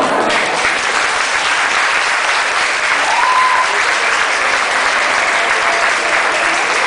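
Audience applauding steadily at the end of a dance number, just as the music stops.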